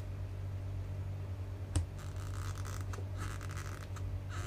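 Exacto knife blade scraping and cutting at the plastic cable holder on a battery-pack housing: a few short rasping strokes and one sharp click about two seconds in.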